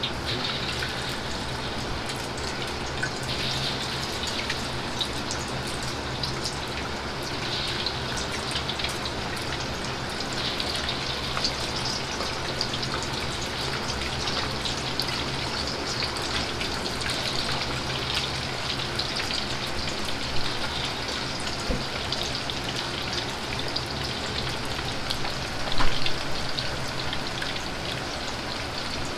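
Batter-coated chicken pieces deep-frying in a wok of hot oil: a steady crackling sizzle over a low hum. A single brief knock stands out near the end.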